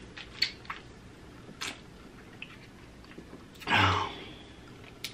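Wet mouth sounds of a man sucking on a freeze pop in a plastic sleeve: a few short lip smacks and sucks, then one louder slurping breath just under four seconds in.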